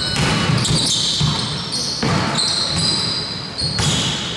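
A basketball bouncing, with players' footsteps on the court during live play, heard as repeated thumps.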